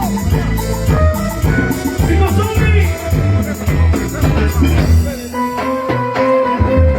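Instrumental passage of a tropical cumbia band song: a steady bass and drum beat under melody lines. About five seconds in, the bass and drums drop out for over a second while held higher notes carry on, then the beat comes back.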